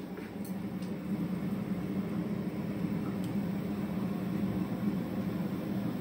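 A steady low mechanical hum with a hiss over it, a little louder from about a second in, with a few faint ticks.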